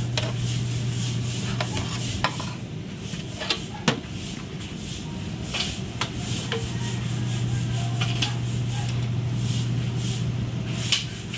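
Scraping and light metallic clinks as a metal steamer tray of lobster tails is handled and set onto a stacked steamer, with scattered knocks over a steady low hum that drops out for a few seconds around the middle.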